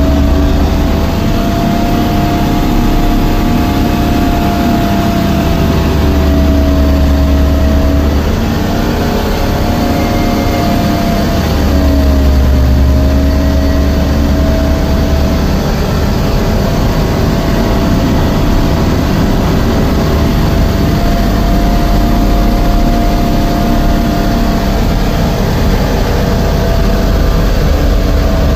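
Heavy diesel truck engine heard from inside its cab, pulling steadily along a rough gravel haul road. It has a constant low rumble and engine tone, and the pitch sags slightly about halfway through before picking up again, over steady road and cab noise.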